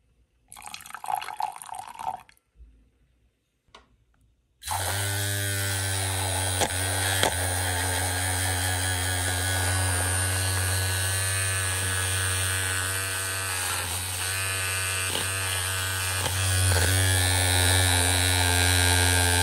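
Liquid pours into a glass beaker for a second or two. About four and a half seconds in, a small handheld electric mixer starts and runs steadily with a low motor hum, emulsifying a body butter mixture.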